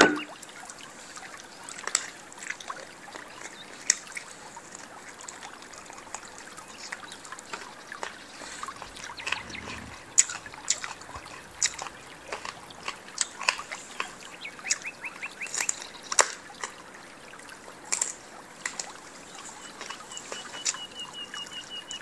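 Close-miked eating of steamed chicken feet: irregular wet smacks, sucks and small clicks of chewing skin and soft bone. A short high, rapidly pulsing buzz sounds near the end.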